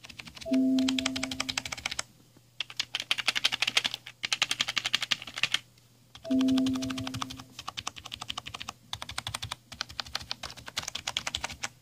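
Fast typing on a White Shark Shogun GK-1621 gaming keyboard: runs of rapid key clacks broken by short pauses. A short ringing tone, the loudest sound, comes twice, about half a second in and again around six seconds in.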